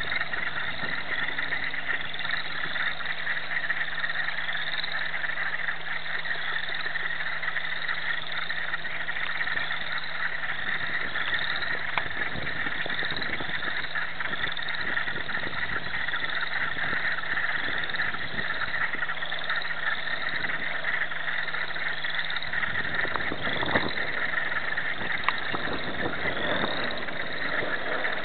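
Dense breeding chorus of chorus frogs and wood frogs calling together. Many overlapping short rising trills of the chorus frogs repeat without a break over the wood frogs' calls.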